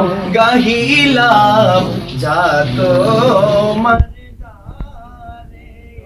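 Men's voices singing a devotional chant together in a wavering, drawn-out melody. The singing breaks off about four seconds in, leaving only faint voices.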